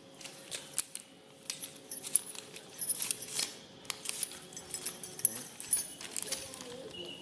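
Small metal accessories, such as drill bits, being handled in a plastic accessory case: irregular light metallic clinks and clicks, several a second.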